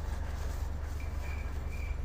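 A steady low rumble, with a short high chirp that starts about a second in and repeats about three times a second.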